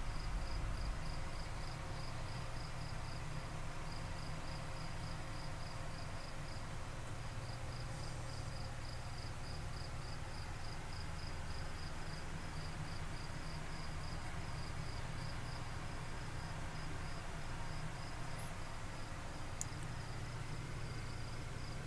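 A cricket chirping steadily, about three high-pitched chirps a second, with two brief pauses. A low steady rumble runs underneath.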